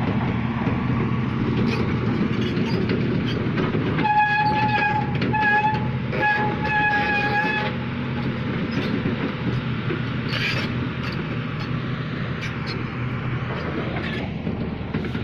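A heavy engine running steadily, with a vehicle horn sounding three times about four seconds in: a long blast, a short one, then a longer one.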